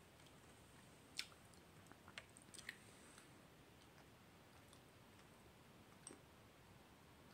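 Near silence with a few faint clicks, the clearest about a second in, a small cluster around two to three seconds and one near six seconds: soft chewing and mouth sounds of someone eating a spoonful of a cheese dessert.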